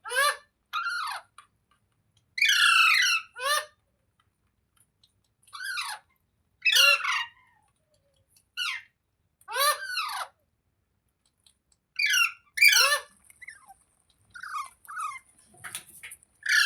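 Rose-ringed (Indian ringneck) parakeet screeching: about a dozen harsh, short calls, most sliding down in pitch, given in clusters of two or three with brief pauses between.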